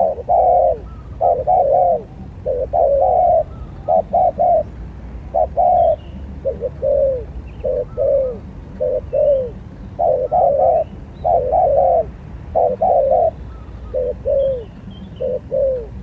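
Spotted dove cooing loudly and repeatedly, in short phrases of two or three falling coos, about one phrase a second.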